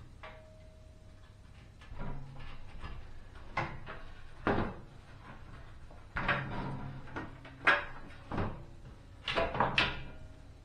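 Metal burner grates and a stovetop cover being set down on and lifted off a gas range top: a series of clanks and knocks, several in quick succession near the end.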